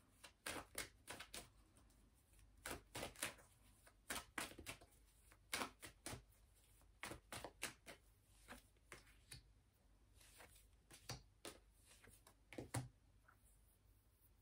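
Tarot cards being handled and shuffled: a run of short, soft clicks and flicks, one at a time or in small clusters, at an uneven pace.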